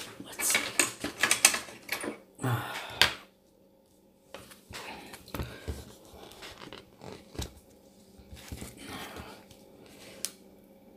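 Clear plastic wrapping crinkled and torn off a paper pad, with loud crackling rustles for the first three seconds. Quieter rustling of plastic and paper follows as the pad is handled, with a sharp click near the end.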